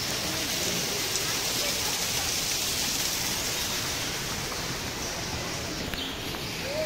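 Steady hiss of running and falling water from an indoor rainforest exhibit's artificial rain and stream, with faint voices in the background.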